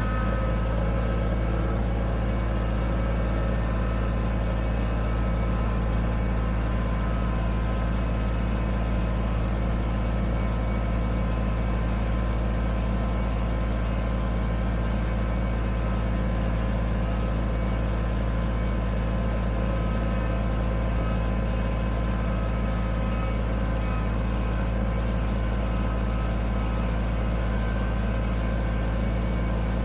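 Kubota BX25D sub-compact tractor's three-cylinder diesel engine running steadily under load as it pushes a loader-mounted snow plow along a trail.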